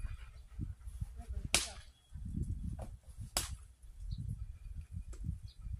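Two sharp clicks about two seconds apart over an uneven low rumble of wind buffeting the microphone.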